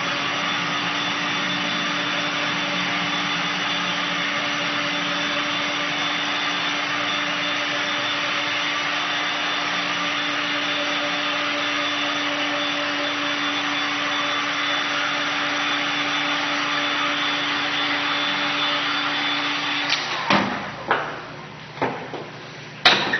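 Handheld heat gun running steadily, its fan blowing hot air onto silicone printed on fabric to cure it: an even rush of air with a steady hum. It switches off near the end, followed by a few sharp knocks as the gun and a wooden frame are put down on the table.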